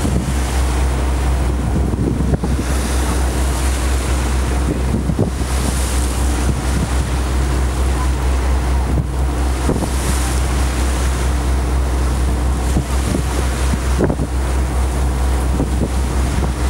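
Boat engine running with a steady low drone, with wind buffeting the microphone and water washing along the hull.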